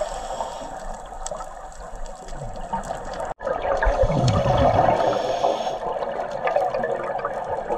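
Underwater sound of scuba breathing: a regulator's exhaled bubbles rushing and gurgling, louder for a couple of seconds after a brief dropout about three and a half seconds in.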